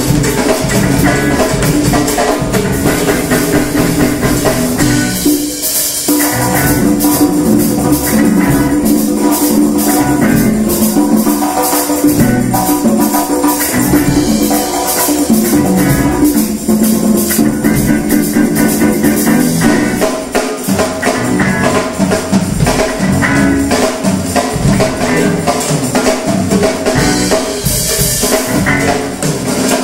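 Live band playing a funk-pop tune, with drum kit, congas and electric guitar playing on through the whole stretch.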